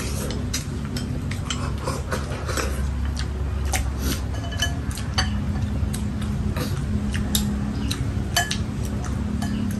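Eating utensils clinking against bowls and plates at a meal: many small sharp clicks at irregular intervals.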